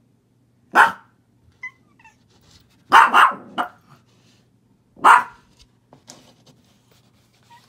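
Dog barking off camera: one sharp bark about a second in, a quick run of three barks around three seconds, and one more bark about five seconds in.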